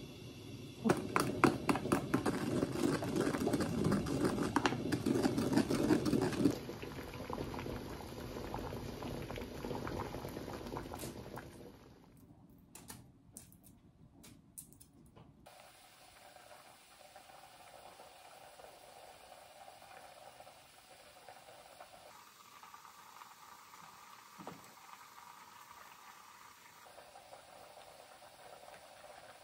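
Water bubbling and splashing loudly for several seconds in a kitchen, then settling into quieter noise. A few light clicks follow, then only faint background.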